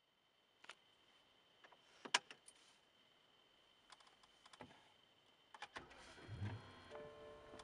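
Faint sharp clicks and clunks inside a BMW 745Li's cabin, the loudest about two seconds in. About six seconds in there is a brief low rumble, and then a few steady tones begin.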